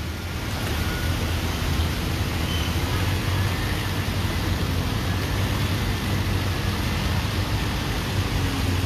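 Steady traffic noise of motorbikes and cars driving through floodwater on a street: an even rushing hiss over a low rumble, with faint engine hum.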